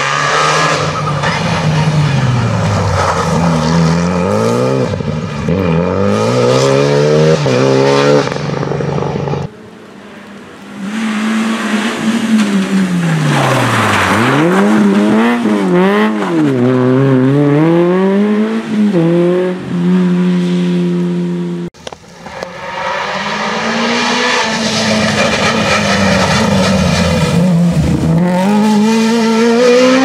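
Rally cars driven hard through tight bends, one after another: engines revving up and dropping away again and again with gear changes and lifting off for the corners. The sound changes abruptly twice as one car gives way to the next.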